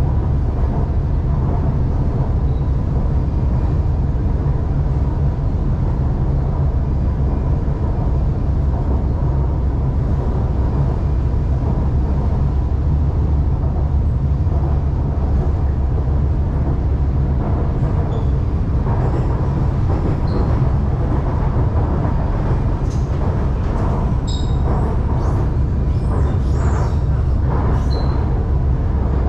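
Shanghai Metro Line 2 train running along the track: a steady low rumble of wheels and running gear with a faint steady tone, and scattered light clicks and knocks over the last few seconds.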